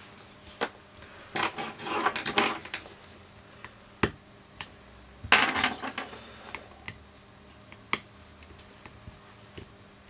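Handling noise from the plastic battery-cover housing of a Garmin eTrex GPS being moved and worked by hand: two scraping, rattling bursts about a second and a half in and again around five and a half seconds, with several sharp clicks of small plastic and metal parts between them.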